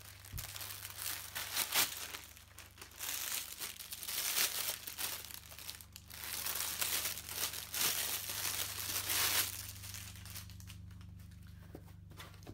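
Crinkling and rustling of a plastic package being handled and opened, in irregular bursts for about nine and a half seconds, then it stops.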